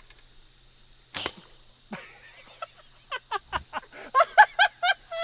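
Compound bowfishing bow shot: the string releases with one sharp snap about a second in, followed by a fainter knock just under a second later. From about three seconds in, a man laughs in quick, rhythmic bursts that grow louder.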